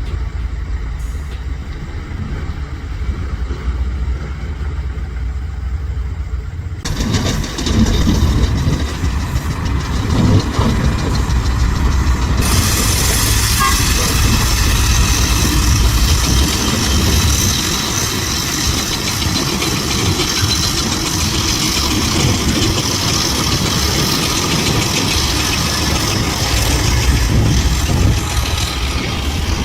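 Heavy diesel earthmoving machinery running with a steady low engine rumble. About seven seconds in the sound steps up abruptly to a louder, fuller machine noise, and from about twelve seconds a high hiss is added on top.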